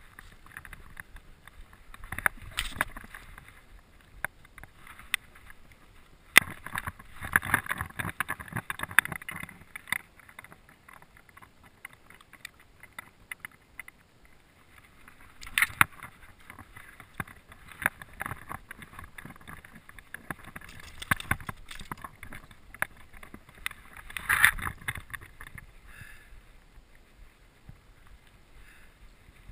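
Handling noise as a channel catfish is worked in a landing net and lifted out by hand: scattered clicks and knocks with several louder bursts of rustling and rubbing.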